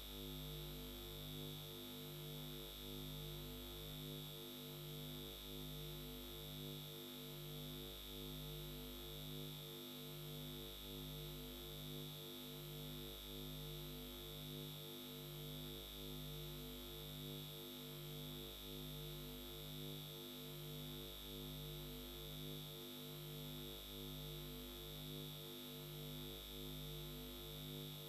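Faint electronic drone: several low tones pulsing evenly a little over once a second, over a steady high whine and a low hum.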